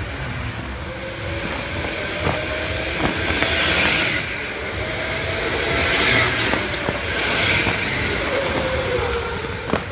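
Electric go-karts driving past on an indoor track: a motor whine and tyre noise that swell and fade as the karts go by, loudest about four and six seconds in.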